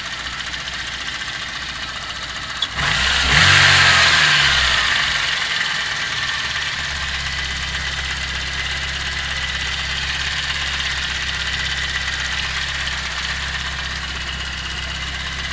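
VAZ 2109 four-cylinder engine running warm with a clatter of the valve tappet buckets, which are loose in their worn bores in the cylinder head, a sign the owner reads as a dying head. A click about three seconds in, then a louder surge of noise that eases off over the next few seconds.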